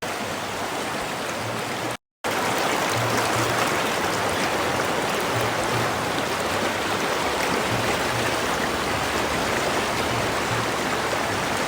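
River water rushing over stones, a steady flowing noise. It cuts out briefly about two seconds in, then carries on a little louder.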